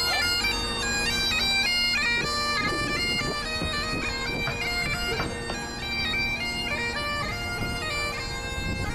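Great Highland bagpipes playing: steady drones held under a chanter melody of quickly changing notes.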